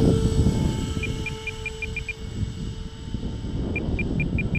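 Four 64 mm electric ducted fans of a foam scale Airbus A380 model running at part throttle as it flies overhead, a steady hissing rush with a faint steady tone. Two quick runs of short, high electronic beeps sound over it, one in the middle and one near the end.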